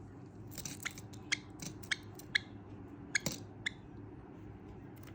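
Cinnamon Java sparrow making a run of about nine short, sharp clicks, irregularly spaced, most of them in the first three and a half seconds.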